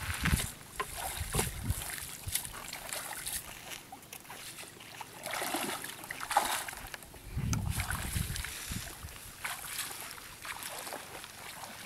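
Irregular splashing and sloshing of shallow water as people wade and work a fishing net by hand, with scattered clicks and rustling.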